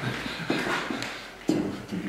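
Men laughing in two short bursts, about a second apart.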